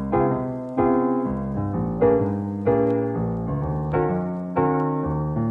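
Background piano music: a slow run of soft chords, each struck and left to fade before the next.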